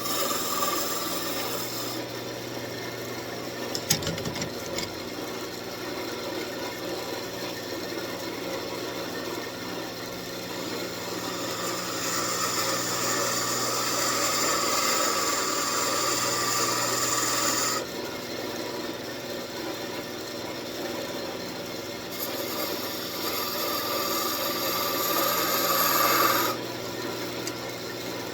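Wood lathe running with a steady motor hum while a turning tool cuts into a spinning walnut blank. The hiss of the cut comes in stretches, each stopping abruptly as the tool is lifted off, and there is a single sharp click about four seconds in.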